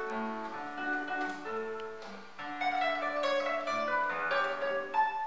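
Solo classical nylon-string guitar playing a flowing line of plucked notes over held bass notes, easing briefly about two seconds in before the playing grows fuller again.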